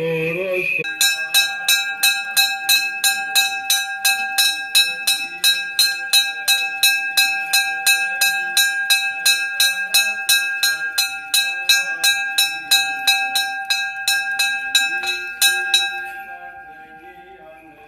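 A small church bell in a chapel's bell-cote, rung by hand with a pulled rope. It is struck rapidly and evenly, about four strikes a second, for some fifteen seconds. Then it stops and the bell rings out and fades.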